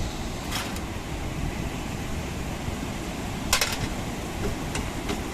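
Wind buffeting the microphone in a steady low rumble, with a few sharp clicks: one about half a second in, three close together about three and a half seconds in, and two fainter ones near the end.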